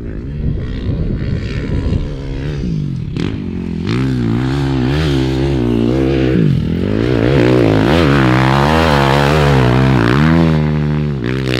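Dirt bike engines running and revving, the pitch rising and falling over and over, growing louder from about four seconds in.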